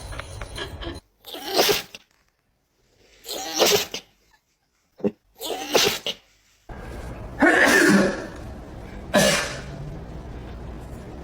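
A series of about five separate sneezes, each short and sharp, with abrupt silent gaps between the first three and a steady background hiss behind the last two.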